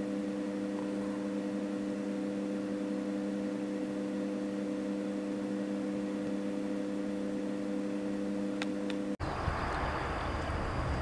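A steady, unchanging hum of a few held tones for about nine seconds, cut off suddenly. It gives way to outdoor rumble with wind on the microphone and a faint, steady high whine.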